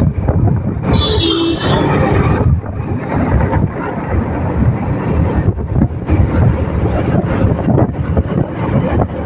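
Wind buffeting the microphone over the running engine and road noise of a motorbike being ridden along a road. A brief high tone sounds about a second in.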